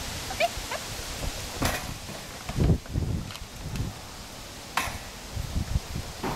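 A Rottweiler jumping up into a plastic travel crate in an SUV's cargo area, with dull thumps about two and a half seconds in, then clicks and knocks as the crate's wire door is swung shut.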